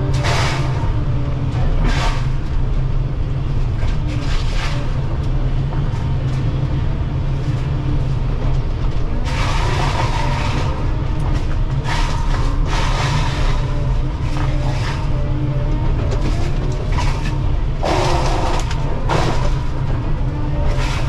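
Excavator's diesel engine running steadily with a deep rumble, with irregular louder bursts of noise every second or few.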